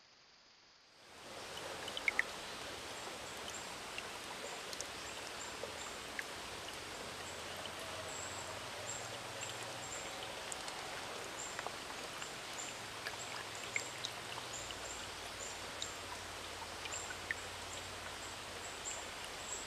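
Shallow rocky woodland creek trickling, starting about a second in, with small scattered drips and clicks and a faint high chirp repeating about twice a second.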